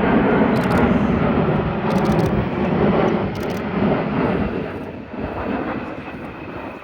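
The jet engines of an RC-135W Rivet Joint, a four-engined Boeing 707-based aircraft, flying low overhead with loud, steady jet noise that fades over the last couple of seconds.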